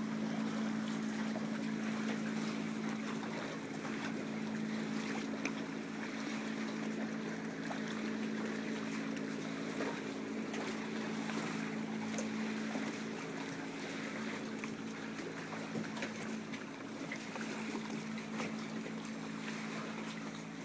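A steady motor hum, unchanging throughout, with light wind and water noise over it.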